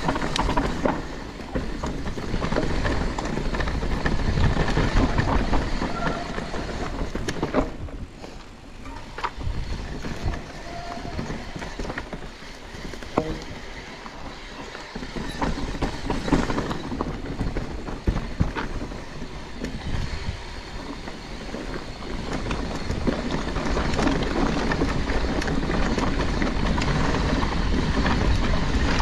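Electric mountain bike being ridden down a dirt trail: continuous tyre and rushing noise with the bike clattering and knocking over bumps, the level rising and falling with the terrain.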